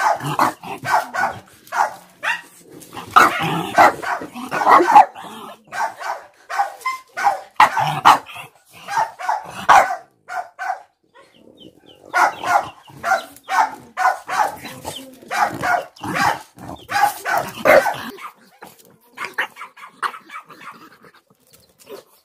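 A puppy barking and yipping over and over in short quick runs, with a brief lull about ten seconds in. The barking is nervous: the puppy is scared of a baby chick held out toward it.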